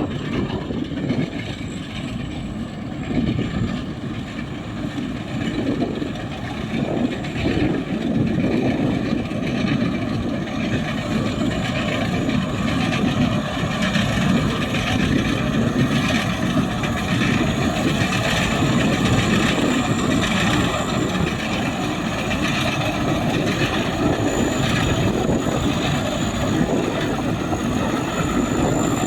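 Rice combine harvester running steadily, its engine and machinery making a continuous drone with a thin high whine over it.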